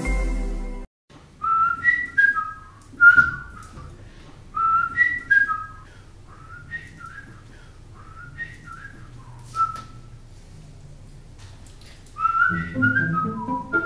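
A man whistling a tune in short phrases of rising and falling notes, with pauses between them. A music sting cuts off just under a second in, and backing music comes in under the whistling near the end.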